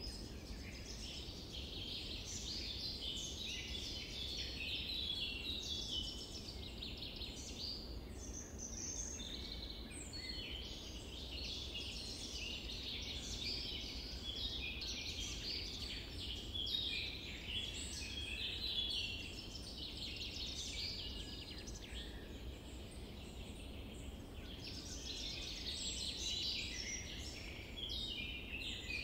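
A dense chorus of many small birds chirping and twittering over one another without a break, over a steady low rumble.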